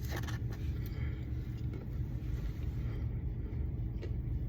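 Steady low rumble, with a few faint short taps.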